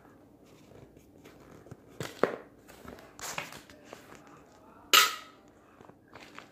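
Handling noise on a cardboard box: a few light knocks and taps, with one short, louder scraping rustle about five seconds in.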